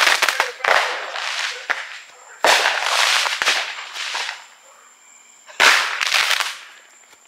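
Consumer fireworks going off: three loud bursts of crackling hiss with sharp pops, about three seconds apart, each fading out over a second or two. They come from a firework that was set down not standing straight.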